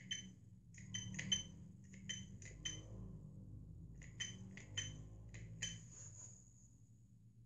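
Keys of a homemade keypad being pressed in quick groups: about fifteen short clicks, each with a bright, glassy ring. A faint steady low hum runs underneath.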